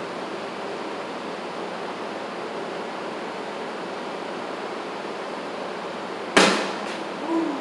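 A cornhole bag hits the wooden board with a sharp thump about six seconds in, followed by a fainter knock, over a steady hiss.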